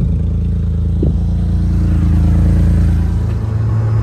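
Small engine of a Japanese mini truck running under load while driving, with a short knock about a second in and a change in the engine's note about three seconds in. The truck is slow and struggles to get up to speed.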